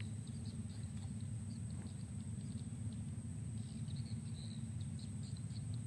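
Outdoor ambience: a steady low rumble with faint, scattered high chirps.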